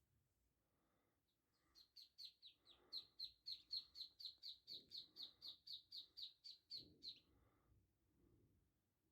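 Duckling peeping: a fast run of high, short peeps, about four a second, starting about two seconds in and stopping about seven seconds in.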